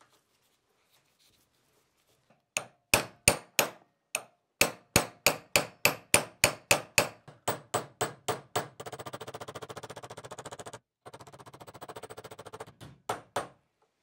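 Small hammer tapping on brass buckle-pin parts clamped in a bench vise: a run of about twenty sharp metallic taps, roughly three a second. A fast, even rattle follows for about four seconds with a short break, then two more taps near the end.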